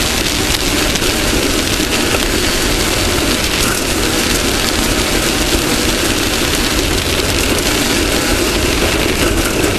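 Off-road race car's engine running steadily under a loud, unbroken wash of noise across all frequencies, with no clear change in pace.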